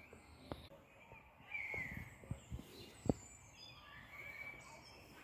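Faint bird chirps in the background, with several sharp knocks or taps, the loudest about three seconds in.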